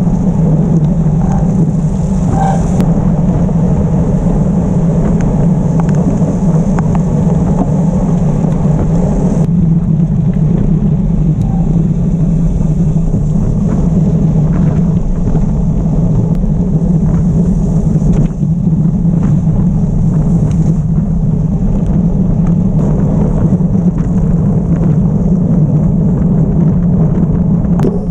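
Wind rushing over an action camera's microphone together with the rumble of gravel-bike tyres rolling at race speed, a loud, steady noise. A high hiss over the rumble cuts out suddenly about a third of the way in.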